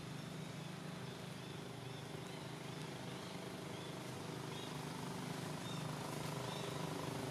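A motor vehicle's engine runs steadily, slowly growing louder, with faint high chirps over it.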